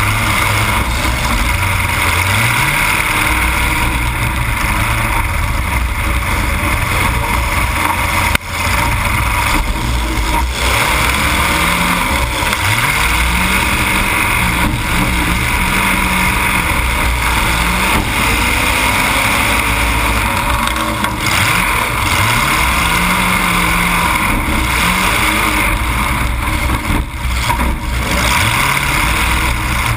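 Demolition derby car's engine running loud through open exhaust pipes that stand up through the hood, revving up and down again and again. A sudden bang about eight seconds in.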